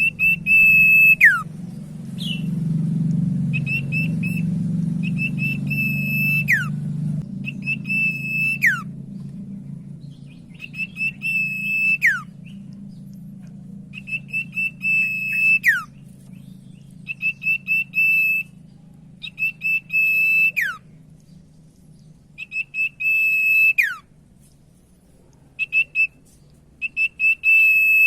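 Common iora (cipoh) singing: repeated phrases, each a few quick stuttered notes running into a long, steady, high whistle that ends in a sharp downward slur, coming every two to three seconds. A steady low hum lies underneath, louder in the first seven seconds.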